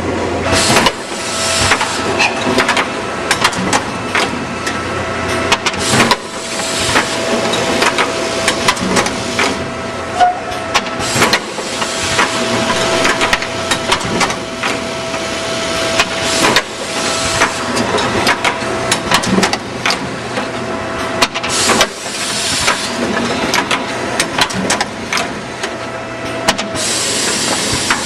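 Sigma automatic feed drill, drive and rivet machine cycling along a wooden board: about every five seconds a station works with a noisy burst of a second or so, over a steady whine and many short clicks and knocks.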